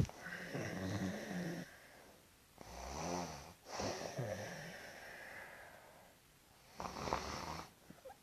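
A person snoring: three drawn-out, rasping snores, each about a second long, with breathy hissing stretches between them.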